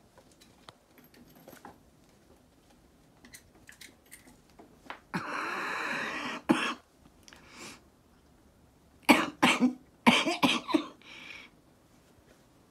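A person coughing: a cluster of short, harsh coughs about two-thirds of the way in, after a breathy rasp about halfway.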